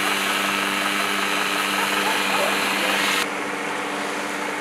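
An engine runs at a steady, fairly high pitch throughout, under a loud hiss that drops away about three seconds in. Birds chirp faintly.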